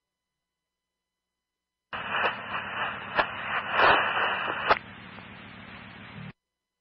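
Police radio channel keyed with no clear words: after a silence, a loud rush of static with a steady whistle tone and a few sharp clicks for about three seconds, then a softer hiss with a low hum that cuts off suddenly as the transmission ends.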